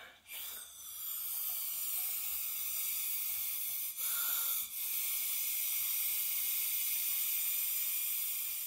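A person blowing steadily through a drinking straw to inflate a balloon: a breathy hiss of air, broken by two short pauses around the middle.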